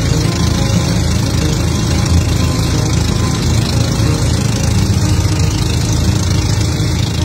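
Engine of a motorised outrigger boat (bangka) running steadily while the boat is under way, a loud, even drone.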